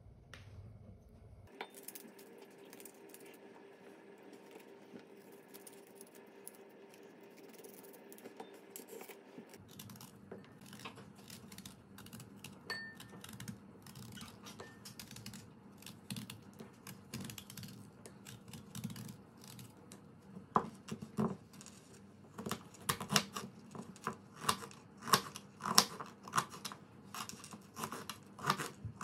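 Raw quince being peeled and then chopped with a knife on a plastic cutting board: quiet small cutting and handling clicks at first, then from about two-thirds of the way in the blade knocks on the board in quick, uneven runs of several strokes a second as the fruit is cut into cubes.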